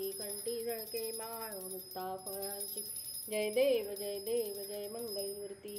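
Devotional music: a melody over a steady drone, with a bell jingling throughout.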